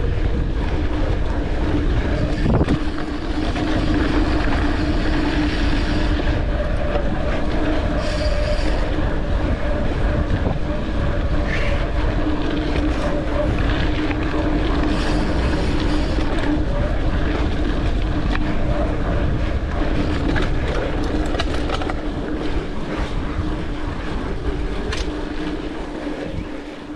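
Mountain bike being ridden along a dirt trail: a low rush of wind over the microphone, the bike clicking and rattling over rough ground, and a steady mid-pitched hum running under it. The sound drops off near the end.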